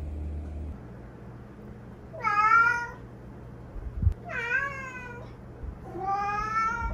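Domestic cat meowing three times, each call a drawn-out 'raowww' about a second long that rises and then falls in pitch. A single light knock falls between the second and third meows.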